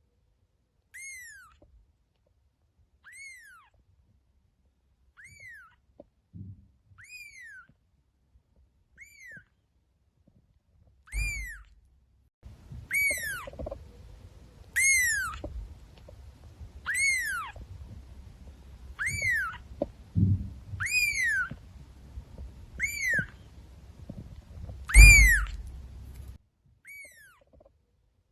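A cat meowing over and over: high, short meows that rise and fall, evenly spaced about two seconds apart. Partway through the meows get louder over a low rumble with a few thumps, the loudest thump near the end.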